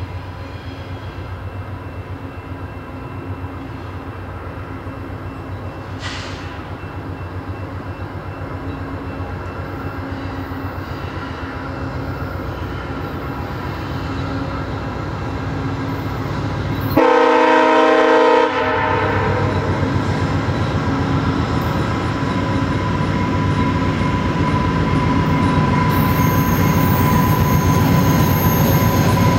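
VIA Rail GE P42DC diesel locomotive approaching, its engine rumble growing steadily louder, with one loud horn blast about two-thirds of the way in that lasts about a second and a half and cuts off sharply. Near the end a thin, steady wheel squeal joins the rumble as the train draws alongside.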